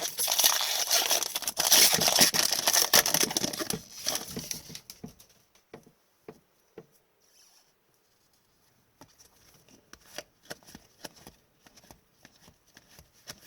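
Hockey card pack wrapper being torn open and crinkled for about five seconds, then fainter scattered clicks and rustles as the cards are handled.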